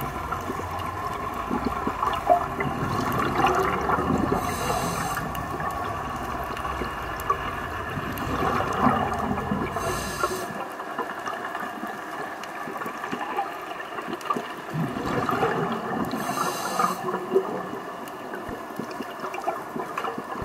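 Underwater sound picked up by a diver's camera: a steady wash of water noise with fine crackling, and three short hissing bursts of exhaled scuba bubbles about six seconds apart. A low rumble under it drops away about halfway.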